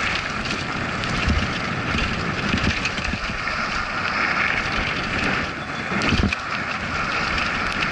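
Mountain bike descending a dry dirt downhill trail: steady rushing noise of tyres on loose dirt and wind over the camera microphone, with knocks and rattles from bumps, the biggest about a second in and again about six seconds in.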